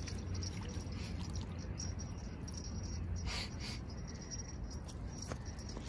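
Spinning reel on a feeder rod being cranked to bring in a hooked fish, a fine rapid ticking over a steady low rumble. Two short brushing sounds a little after three seconds in.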